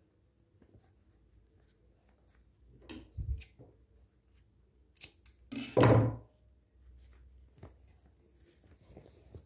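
Stiff canvas and fabric being handled and folded: a few short rustles and soft knocks, the loudest a brief rustle about six seconds in.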